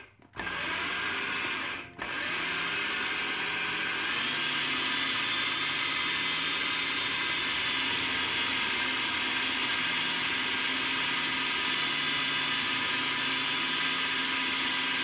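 Electric food processor motor running as it cuts butter into flour and sugar for cookie dough. It cuts out briefly twice near the start, then runs steadily with a constant whine.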